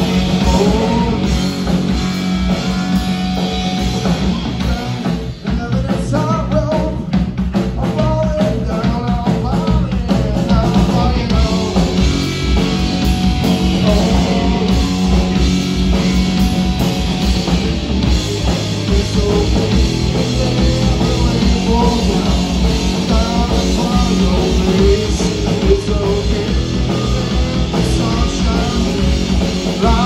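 Live rock band playing: electric guitar, bass guitar and drum kit, with a man singing over them.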